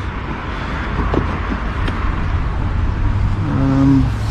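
Steady low rumble of a motor vehicle running nearby, with a short pitched hum near the end.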